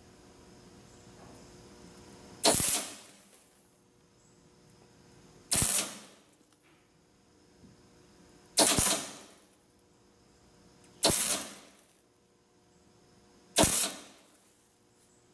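MIG welder arc crackling in five short bursts, each cutting off within about half a second and coming every two and a half to three seconds. These are short welds building up a nut onto a broken-off stainless bolt in a cast-iron exhaust manifold, so the bolt can be twisted out.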